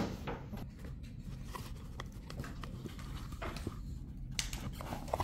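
Scattered light clicks and taps from a jewelry box and its packaging being handled, over a low room hum.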